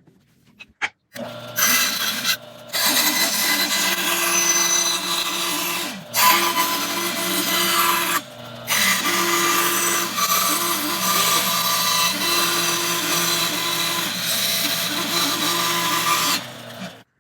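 Electric power tool running against wood in long bursts, stopping briefly three times.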